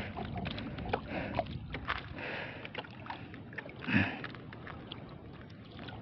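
Water sloshing and lapping around a small outrigger fishing boat, with light clicks and handling sounds from taking bait out of a mesh bag and threading it onto a hook. A single louder thump comes about four seconds in.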